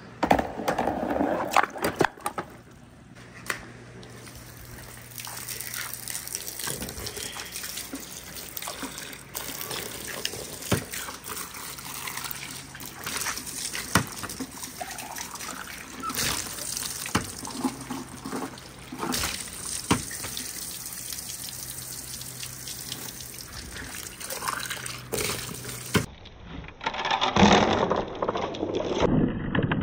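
Water from a hose splashing and trickling over a bamboo spout and down a wet wooden marble run, with scattered sharp clicks of glass marbles knocking together.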